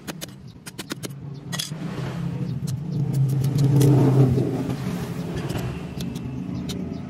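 A motor vehicle's engine passes close by, rising to its loudest about four seconds in and then fading. In the first second there are a few sharp scraping clicks from a cleaver scaling a tilapia.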